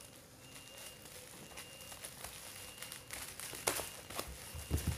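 Bubble-wrapped parcel being handled and turned over, its plastic wrap crinkling faintly, with a couple of sharp crackles and dull thuds near the end.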